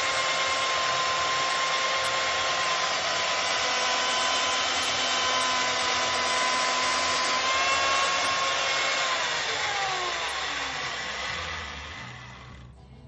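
Mafell LS103 chain mortiser running with a steady whine as its chain cuts a mortise in an oak beam. About nine seconds in it is switched off, and the pitch falls as the motor spins down.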